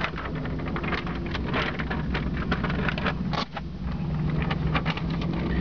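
An engine running with a steady low drone, overlaid by frequent clicks and rattles, with a short dip and a sharp knock about three and a half seconds in.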